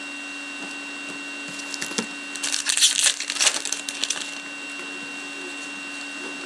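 Foil trading-card pack crinkling and tearing as it is ripped open by hand, a burst of crackly rustling that runs from about a second and a half in to just past four seconds. A steady electrical hum runs underneath.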